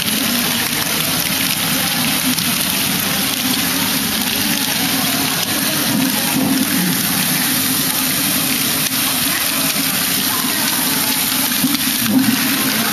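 Steady, dense clatter of a LEGO Great Ball Contraption at work: many small plastic balls rattling through the modules' lifts and chutes, with their small electric motors and gears running.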